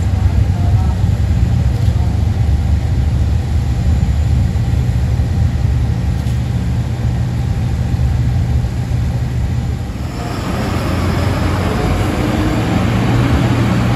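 A large diesel engine running steadily at idle, a deep, even hum. About ten seconds in, a louder rushing noise joins it.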